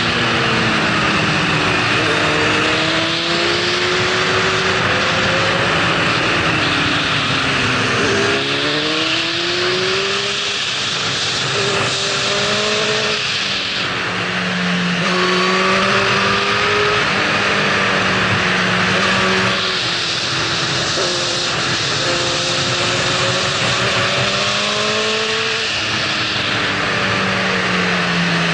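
Yamaha R6 inline-four engine with a Termignoni full exhaust, heard on board under heavy wind rush, revving up and dropping back again and again as it shifts through the gears.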